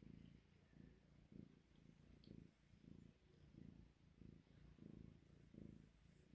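Kitten purring softly, in low swells that come about twice a second as it breathes in and out.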